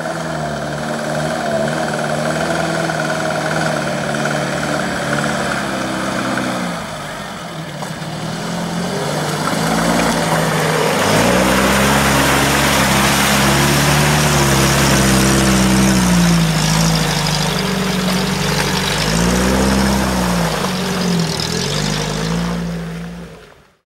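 UAZ-469 engine working hard in low gear through deep mud, its pitch dropping and rising with the throttle. From about ten seconds in it gets louder, with a rushing noise over it, and near the end it revs up and down several times before fading out.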